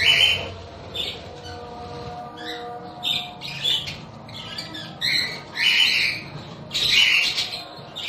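A flock of budgerigars calling and chattering, with loud calls every second or so. The loudest come right at the start and again around five to seven seconds in.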